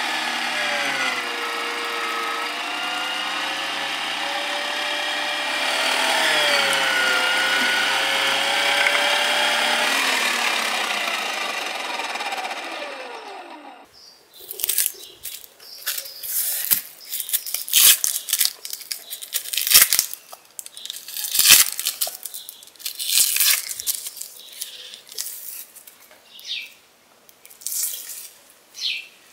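Electric meat grinder motor running as beef is mincing through it, its pitch sagging twice as meat is pressed into the feed tube, then switched off and winding down with a falling whine. After a pause, irregular sharp snaps and crackles of onions being peeled and cut with a knife.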